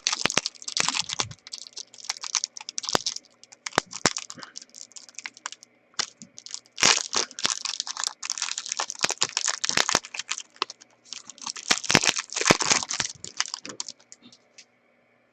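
Trading cards and their packaging being handled: crinkling and rapid clicking in several bursts.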